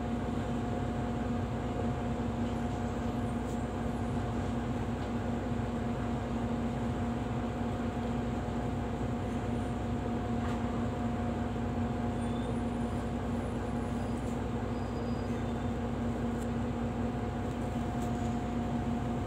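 Steady mechanical hum inside a city bus standing with its machinery running, carrying two constant tones, one low and one higher, over a low rumble.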